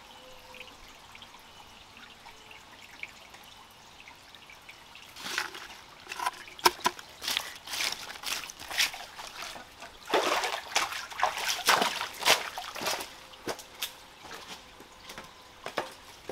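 Hands splashing and squelching in shallow water and wet mud: a quick run of irregular wet splashes that starts about five seconds in and tails off near the end.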